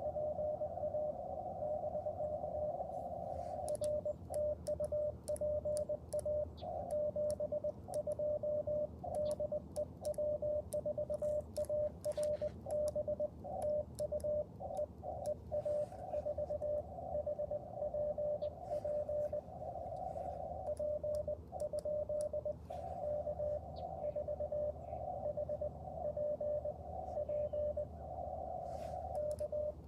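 Morse code (CW) from an Icom IC-705 transceiver: a single mid-pitched tone keyed on and off in dits and dahs over a narrow band of receiver hiss, with light clicks scattered through.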